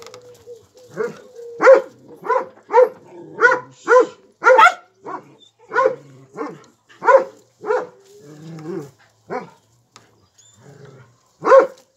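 A dog barking over and over, about two barks a second, with a short pause shortly before the end.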